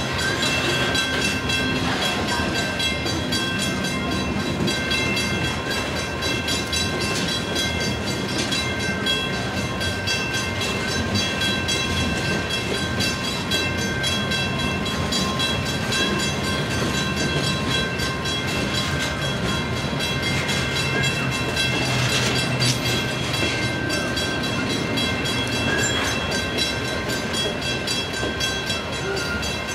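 Loaded coal hopper cars rolling slowly past, a steady rumble of steel wheels on the rails with occasional clicks. Several steady high-pitched tones run over it.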